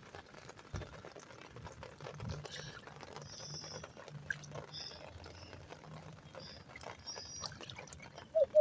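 Rainwater faintly pouring and trickling into a street storm drain that has been cleared of muck and weeds, with a faint low hum underneath.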